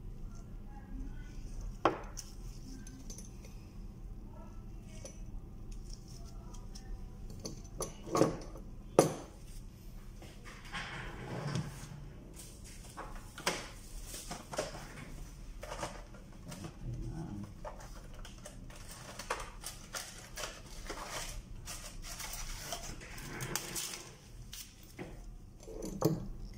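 Aluminium lamp-housing parts of a Pentax EPK-i7010 video processor being handled and set down on a countertop: scattered clinks and knocks, the sharpest about 2, 8 and 9 seconds in, with rustling and scraping sounds in between.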